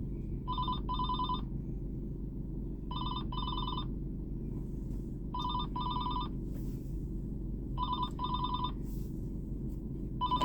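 Phone ringing with a double-ring tone: two short warbling rings, repeated about every two and a half seconds, four times, with a fifth starting at the end. A steady low rumble runs underneath.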